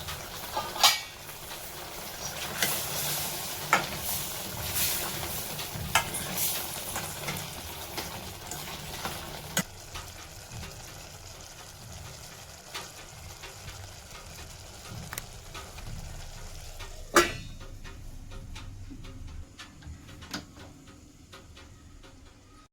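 Mutton liver gravy sizzling in a pan while it is stirred, with frequent clinks and scrapes of the spoon against the pan. A sharp knock comes just under a second in and another about three-quarters of the way through.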